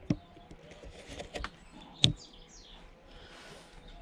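Pliers clicking and scraping against the Dyson DC41's plastic ball housing, a few sharp clicks with the loudest about two seconds in, while birds chirp in the background.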